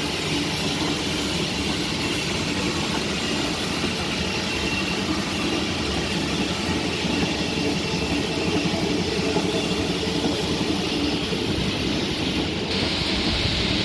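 Steady mechanical rumble and hiss, like heavy machinery or a large vehicle running, changing abruptly near the end.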